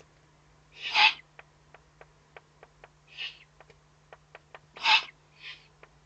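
Eurasian eagle-owl at the nest giving hoarse, hissing calls: two loud breathy rasps about a second in and near the end, with softer ones between. A run of faint clicks, about three a second, and a steady low electrical hum lie underneath.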